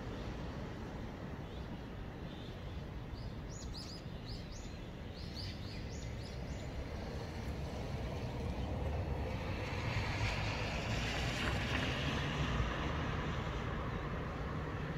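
Outdoor ambience with a steady low rumble. A small bird chirps several times, quickly, in the first half. A rushing noise builds up in the second half and stays loudest near the end.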